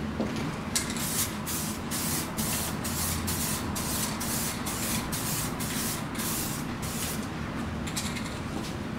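Aerosol spray can hissing in a rapid series of short bursts, a few a second, as a coating is sprayed onto a plastic car headlight lens during restoration. The bursts stop about seven seconds in.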